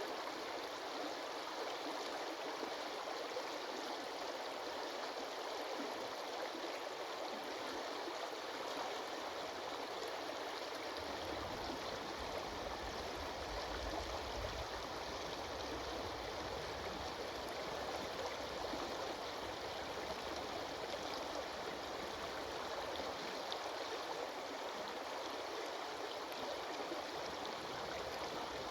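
A stream of water flowing steadily. A low rumble joins in about 11 seconds in and fades out near the end.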